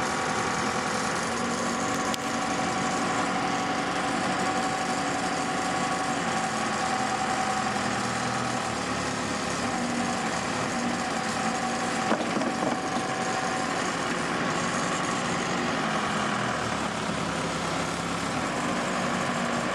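Diesel engine of a Case 580SL tractor loader backhoe running steadily, with a single light click about twelve seconds in.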